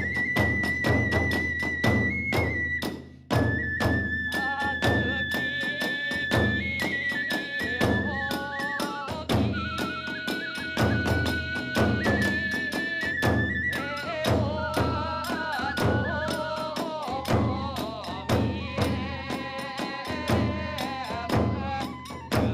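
Hiroshima kagura hayashi: a bamboo transverse flute plays long held notes that step up and down, over fast, steady drum beats and small hand cymbals.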